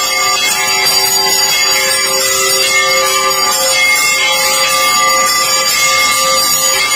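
Hindu temple bells ringing continuously in a dense clangour, with several steady ringing tones held underneath.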